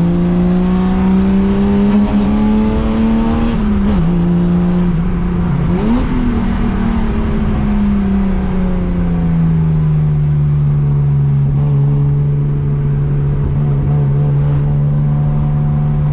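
BMW E36 325i's naturally aspirated straight-six pulling under throttle. Its pitch climbs, drops at a gear change about four seconds in and flares briefly near six seconds, then eases off and settles to a steady cruising note for the rest.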